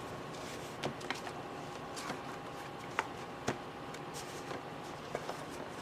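A meditation card deck being handled: a few faint, light clicks and taps spread out over a few seconds, over quiet room tone.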